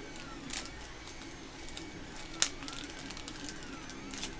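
3D printer's stepper motors whining in faint rising-and-falling glides that repeat about every second as it prints, over a steady hum. Small clicks of parts being handled, with one sharp click about two and a half seconds in.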